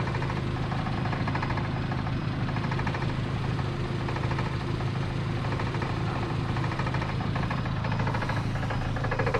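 A car engine running steadily at low revs, an even low hum without changes in speed.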